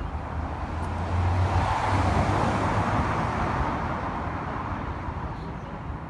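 Street traffic with a vehicle passing: its noise swells about a second in, peaks around two seconds and then fades away.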